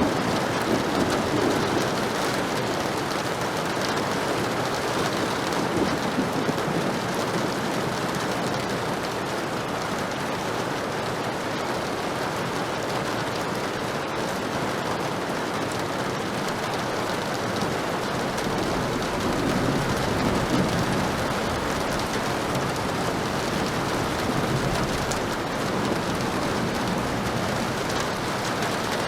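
Heavy rain falling steadily, with low thunder rumbling up near the start and again about two-thirds of the way through.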